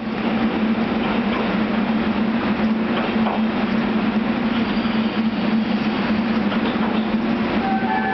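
JR Kyushu 811 series electric train running as it pulls out of the station: a steady low hum over an even rumble, with no clicks of wheels over rail joints.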